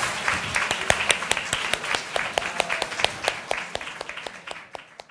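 Audience applauding: many hands clapping, the claps thinning out and fading away near the end.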